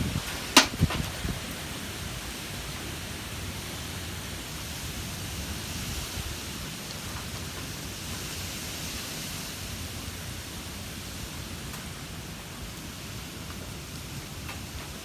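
Wind blowing steadily as an even rushing noise. A couple of sharp knocks come in the first second, the louder one about half a second in.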